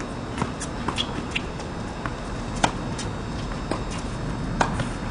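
Tennis rally on a hard court: a string of sharp pops from racket strikes and ball bounces, the two loudest about two and a half and four and a half seconds in, over a steady background hiss.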